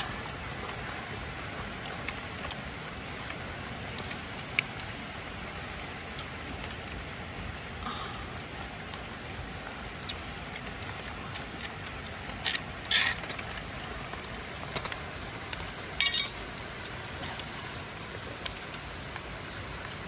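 Snail shells clicking and knocking as they are handled on a wire grill: a few sharp clicks, the loudest about three-quarters of the way through, over a steady hiss.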